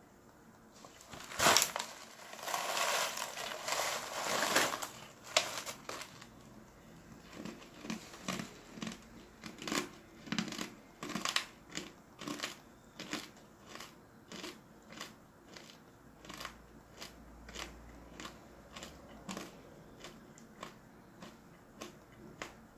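Crunching of dried shiitake mushroom slices: a sharp crack and a couple of seconds of dense crunching near the start, then a steady run of crisp chews, about two a second, growing fainter toward the end.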